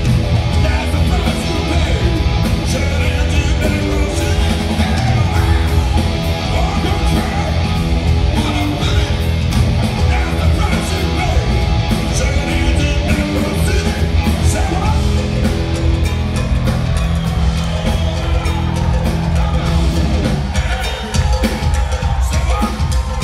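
Hard rock band playing live in a concert hall: distorted electric guitars, bass and drum kit, with a shouted lead vocal. The low end thins out briefly near the end before the full band comes back in.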